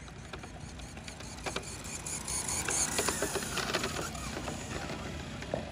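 A radio-controlled drag car's electric motor and gears whirring, with scattered clicks and rattles. It gets louder about two seconds in, then eases off.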